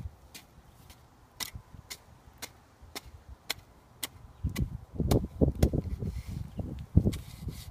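Garden shovel digging into dry soil to loosen it: sharp ticks about every half second at first, then from about halfway heavier low thuds of the blade driving in, the loudest near the end.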